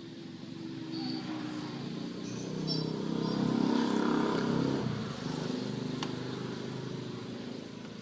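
A motor vehicle engine running, growing louder to a peak about halfway through and then easing off, with a single sharp click a couple of seconds later.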